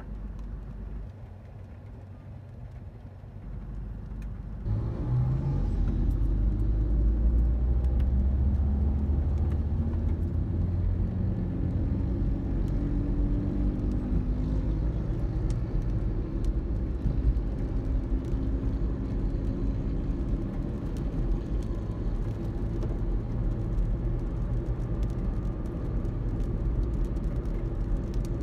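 Car engine and road noise heard from inside the cabin: a quiet low hum while stopped, then about five seconds in the engine note jumps and climbs as the car pulls away, settling into a steady low rumble of engine and tyres while driving.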